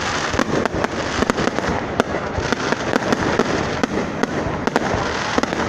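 Fireworks going off in rapid succession: many sharp cracks and pops over a steady rumble, with no pause between bursts.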